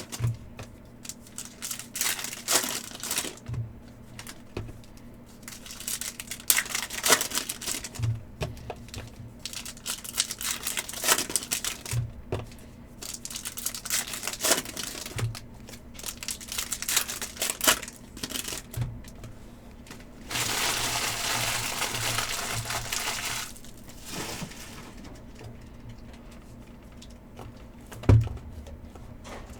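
Foil card-pack wrappers crinkling and tearing, with cards clicking as they are handled, in irregular bursts. About twenty seconds in a steadier rustle lasts about three seconds, and near the end there is one thump.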